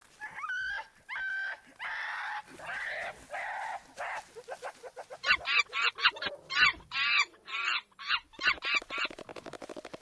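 Several monkeys screaming and calling: a few drawn-out wavering cries first, then a fast run of short shrill screeches from about five seconds in, ending in a rapid chatter.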